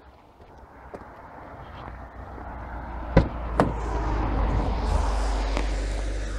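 A BMW E46 car door's handle and latch clicking twice, about three seconds in, as the front door is pulled open, over a rushing noise and low rumble that build and then ease.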